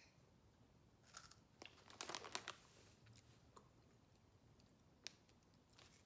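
Faint crunching as paw-shaped cheese corn snacks are bitten and chewed: a few soft crunches about a second in, a short cluster around two seconds, and one sharp crunch near five seconds.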